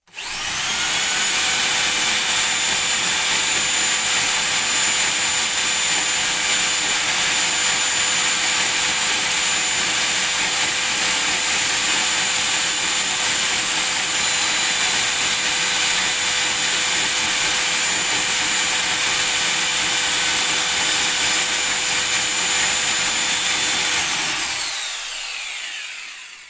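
Electric drill running at full speed, spinning the rotor of a washing-machine motor converted into a small generator. It is a loud, steady whine that starts suddenly, then winds down with falling pitch near the end as the drill is released.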